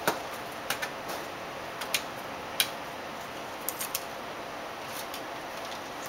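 Light, irregular clicks and taps of hands handling the parts of an opened laptop (plastic, cable connectors), the sharpest about two and a half seconds in, over a steady hiss.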